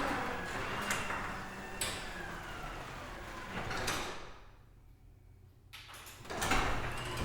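Sectional garage door moving along its tracks: a steady rumbling clatter with sharp clicks from the rollers and panels. About four seconds in it stops and goes nearly quiet, then starts moving again loudly a second and a half later.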